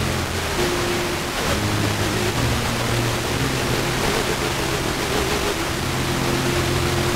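FM radio receiver tuned to a weak, distant station: loud steady static hiss, with faint sustained notes of classical music from ABC Classic FM coming through underneath. The signal is barely above the noise because it arrives by way of an aurora opening.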